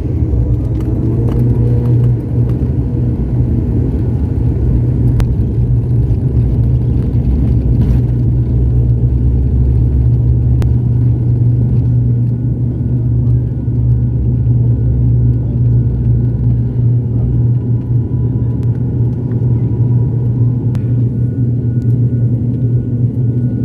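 Airplane taking off: a loud, steady, low rumble of engines and runway roll.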